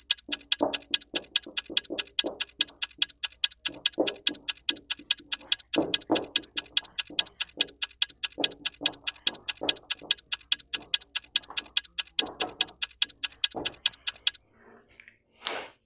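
Stopwatch-style ticking sound effect, rapid even ticks about four a second, stopping suddenly near the end. Underneath, a marker writes on a whiteboard in softer, irregular strokes.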